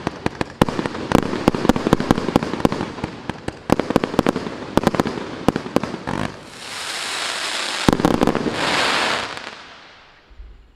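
Faseor Furious GWM6121 firework cake firing a rapid run of sharp bangs, then a few seconds of hissing broken by one more bang, fading away as the cake burns out.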